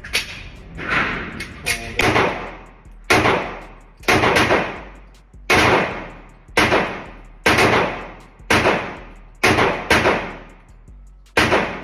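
Gunshots at a shooting range: about a dozen single shots at an uneven pace of roughly one a second, each with a sharp crack and a trailing echo.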